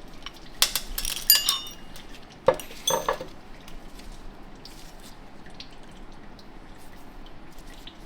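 Steel transmission parts clinking against each other as they are handled during teardown: a handful of sharp metallic clinks with a short ring in the first three seconds, then only faint handling noise.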